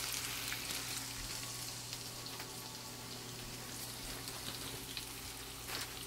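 Oil sizzling steadily in a frying pan around a breaded cutlet and a potato patty, with a light tap near the end.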